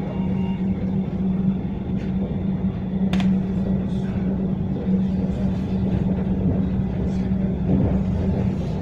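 Tram running, heard from inside the passenger car: a steady low rumble with a constant hum, and a few sharp clicks, the clearest about three seconds in.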